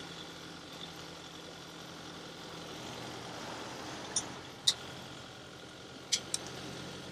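Kubota loader tractor's diesel engine idling steadily and fairly quietly, with a few short sharp clicks over it about four to six seconds in.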